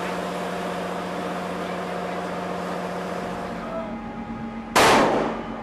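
A steady machinery hum with hiss, then, about three-quarters of the way in, a single loud sharp shot that dies away quickly. It is a shipboard line-throwing rifle fired to send a shot line across to the other ship, the first step in rigging lines for an underway replenishment.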